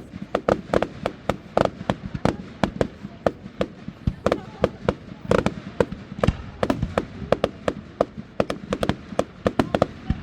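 Fireworks display going off: a dense, irregular run of sharp bangs, several a second, without a break.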